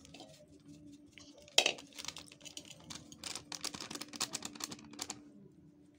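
A spice packet rustling and crinkling as powder is tapped out of it over a steel bowl: one sharp click about a second and a half in, then a quick run of crisp rustles and taps that stops about five seconds in. A faint steady hum lies underneath.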